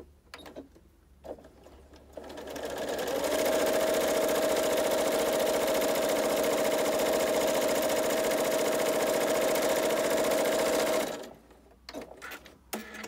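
Janome Horizon 7700QCP sewing machine stitching a straight seam through two layers of cotton fabric: it speeds up about two seconds in, runs at a steady fast speed, then stops about eleven seconds in.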